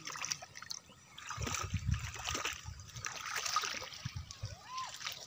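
Shallow lake water splashing and sloshing around legs wading among lily pads, in irregular surges with low swishes. Near the end comes a short high call that rises and falls in pitch.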